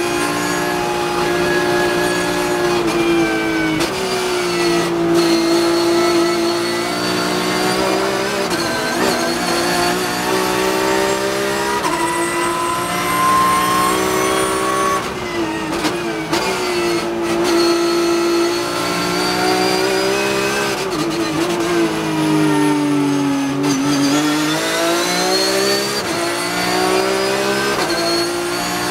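Porsche 991.2 GT3 Cup race car's flat-six engine at high revs, heard from inside the cockpit. The note climbs through each gear and drops sharply at each shift, with several up- and downshifts.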